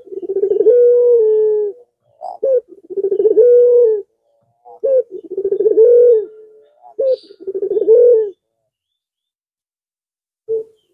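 Puter pelung (Barbary dove) cooing: four long, rolling coos, each opening with a short higher note, about two seconds apart, then a pause with one brief note near the end.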